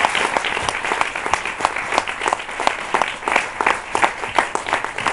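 Live audience applauding, the dense clapping thinning out to more separate, scattered claps over the last couple of seconds.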